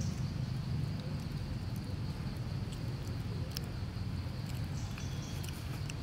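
Forest ambience: a steady low rumble and a thin, steady high hum, with scattered small clicks and rustles and a few short bird chirps near the end.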